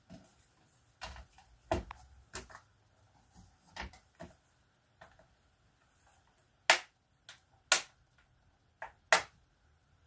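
A stamping platform and rubber stamps being handled and set down on a craft table: scattered light taps and knocks, then three louder, sharp clicks in the second half.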